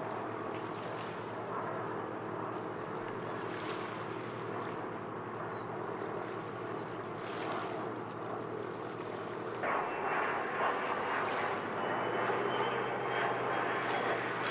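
PBY Catalina flying boat's twin radial engines running steadily at low power on the water, then opening up about ten seconds in: louder and rougher, with a faint whine that rises slightly near the end.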